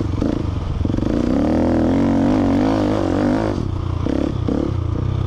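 KTM 690 Enduro's single-cylinder engine pulling through deep sand, its revs rising and falling as the throttle is worked.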